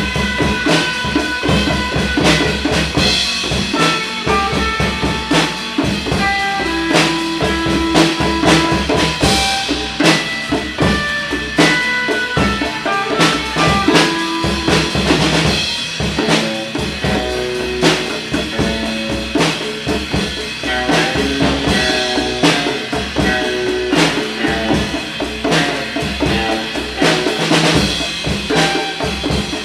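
Band music with no singing: a slow blues with a drum kit keeping time under a lead instrument playing single-note phrases.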